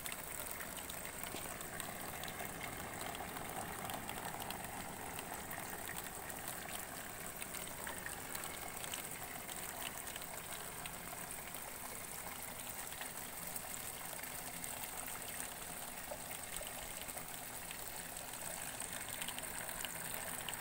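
Nutrient solution trickling and flowing steadily through hydroponic growing channels, with a steady high-pitched whine over it.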